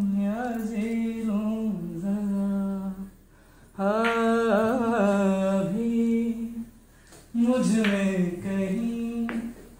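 A man humming a song's melody unaccompanied, in three long held phrases of two to three seconds each with short pauses between.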